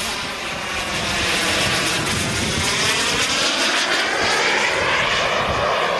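The PST 600R model jet turbine of a Falcon 120 RC jet flying overhead. A steady rushing whine grows louder about a second in, and its tone shifts as the jet passes.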